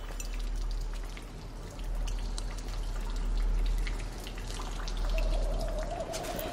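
Water dripping over a low, steady rumble, with a faint held tone coming in near the end.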